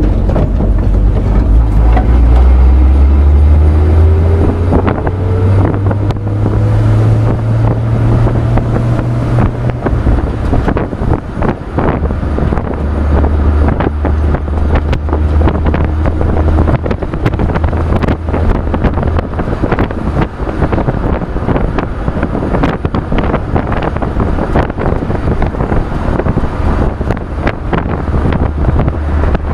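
1966 Chevrolet pickup truck on the move, heard from the open bed: engine and road rumble with wind buffeting the microphone and frequent knocks and rattles. The engine's pitch rises in the first several seconds as the truck speeds up.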